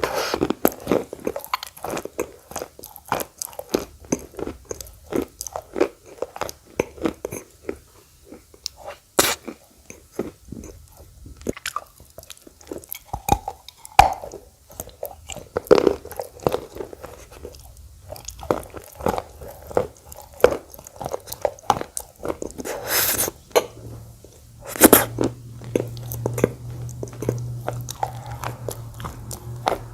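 A person biting and chewing crunchy eating clay (khawa clay), with irregular crunches and mouth sounds and several louder sharp crunches, the loudest near the end. A faint steady low hum comes in about three-quarters of the way through.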